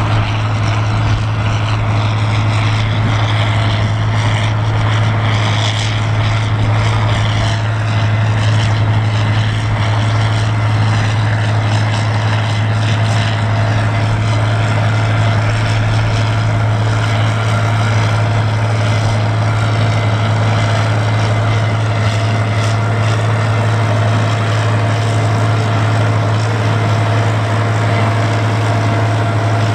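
John Deere 4320 tractor's turbocharged six-cylinder diesel running steadily under load with an even, deep drone, pulling a Knight 8018 Pro-Twin manure spreader as it side-discharges manure.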